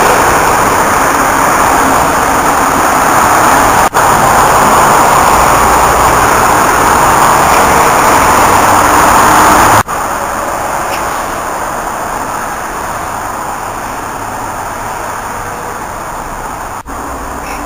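Steady road-traffic noise, an even rushing hiss with no distinct vehicle standing out. It cuts out for an instant about four seconds in, and after a brief break about ten seconds in it goes on noticeably quieter.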